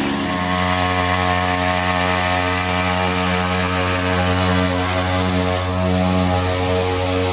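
50cc two-stroke chainsaw engine on a homemade go-kart, running at a steady speed.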